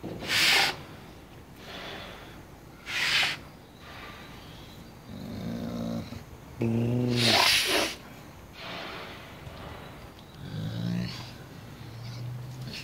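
A wolf growling and huffing in anger: two sharp breathy snorts, one near the start and one about three seconds in, then low growls, the longest and loudest about seven seconds in, and shorter growls near the end.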